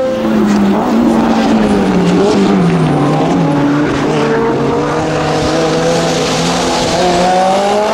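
Racing car engine running hard, its note falling over the first three seconds, holding fairly steady, then climbing again near the end.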